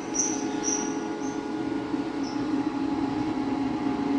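Trumax MX0120 wet/dry vacuum cleaner running steadily, its motor humming with a rushing airflow while it sucks up cobwebs. Short high squeaks repeat about twice a second in the first second or so, then stop.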